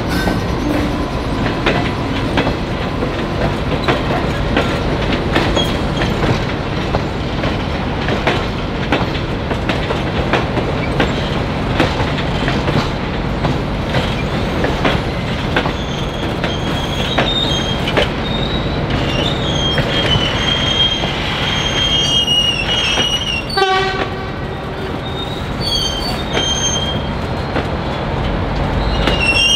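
Passenger train cars rolling through station trackwork, the wheels clicking over rail joints and points. About halfway through, a high, wavering wheel squeal sets in and comes and goes to the end.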